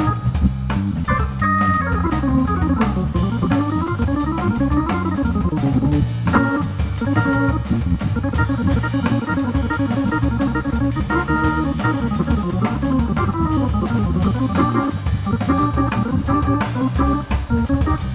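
Live jazz organ-trio playing: a Viscount Legend drawbar organ runs quick up-and-down lines over a walking bass line, with a drum kit and cymbals keeping a steady swing beat.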